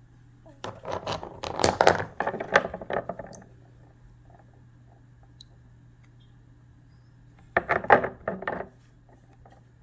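Small cut pieces of stick agate clinking and clattering against each other as they are handled. The clatter comes in two bursts: a longer one of about three seconds near the start, and a shorter one of about a second some eight seconds in.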